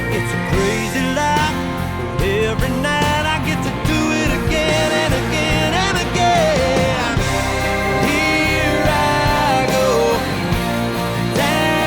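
Background music: a country-rock song, in a stretch without sung words.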